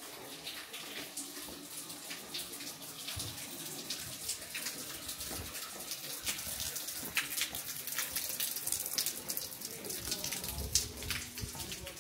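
Water running and splashing steadily, with many small sharp ticks in it.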